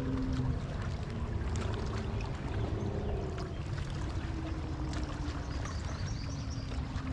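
Steady low rumble of a bass boat sitting on the water, with light water sounds and scattered faint clicks.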